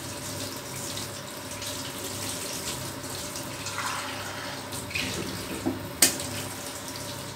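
Tap water running steadily over a hot moka pot held under the faucet, splashing into a stainless steel sink, to cool the pot before it is unscrewed. A single sharp knock about six seconds in.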